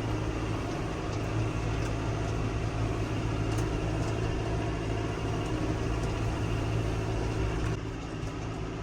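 Massey Ferguson 5S.145 tractor's diesel engine running at a steady speed with an even hum, a little quieter near the end.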